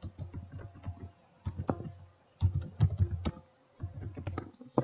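Typing on a computer keyboard in several quick bursts of key clicks with short pauses between them.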